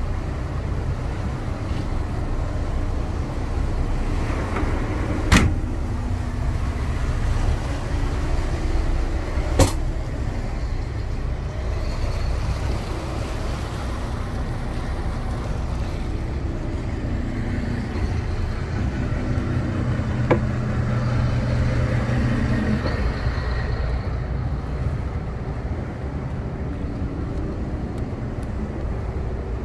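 Motor yacht's engines running underway, a steady low drone. Two sharp knocks come about five and ten seconds in, and a deeper hum swells briefly around twenty seconds in.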